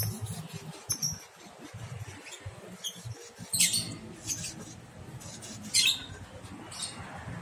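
Lovebirds giving short, high, scratchy squeaks, about six of them a second or so apart, the loudest near the middle and about two-thirds of the way in, over a steady low hum.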